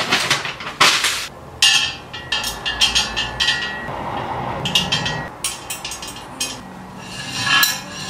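Metal tubes of a flat-pack side table knocking and clinking together as the legs are fitted into the ring frame, in irregular sharp knocks and clicks.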